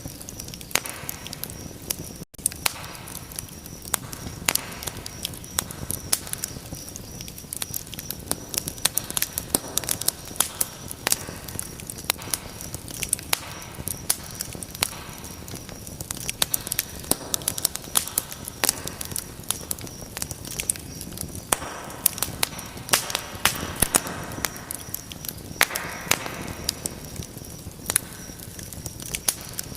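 Wood fire burning in a fireplace, crackling steadily with frequent sharp pops and snaps over a low rushing hiss of flame. The sound drops out for an instant about two seconds in.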